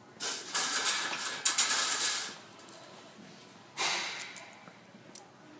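Installation parts being handled: a rustling, scraping noise of about two seconds with a few sharp clicks, then a shorter scrape about four seconds in.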